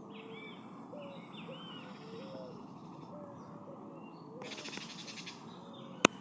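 Forest birds calling over a steady background hiss: a series of short, low whistled notes about twice a second, with higher chirps in the first half and a brief buzzy rattle about four and a half seconds in. A single sharp click near the end is the loudest sound.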